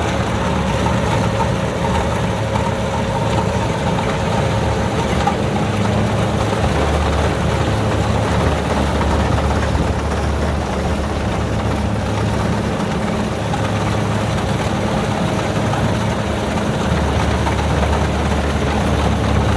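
Kubota DC60 combine harvester's diesel engine running steadily, a constant low drone with a faint steady whine above it.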